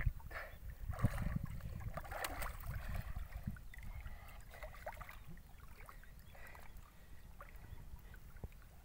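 River water splashing and sloshing around a person wading chest-deep, in irregular bursts that thin out after about five seconds, over a steady low rumble.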